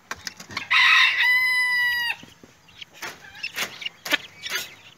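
A rooster crows once, about a second in: a rough start, then a long held note that cuts off. Several short, sharp poultry calls follow.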